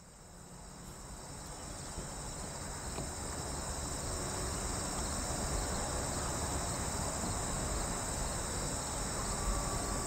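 Insects trilling steadily, several high steady tones, over a low rumble that swells during the first few seconds and then holds.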